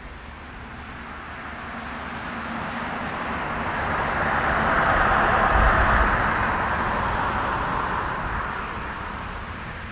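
Jet engine noise from a Boeing 747-400 with four Pratt & Whitney PW4056 turbofans, rolling out on the runway just after landing. The noise swells to its loudest about halfway through, then fades.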